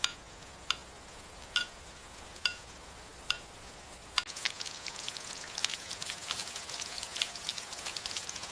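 Rain ambience: single water drops plink about once a second over a steady soft hiss. From about four seconds in, a denser patter of many drops sets in.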